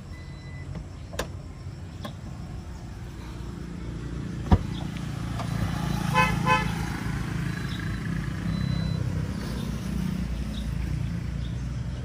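Geely Okavango power tailgate: a sharp clunk as the latch releases, then about a second and a half later two quick buzzy beeps from the car. This is the PTG anti-pinch warning, which sounds when the tailgate meets a hindrance and will not open fully.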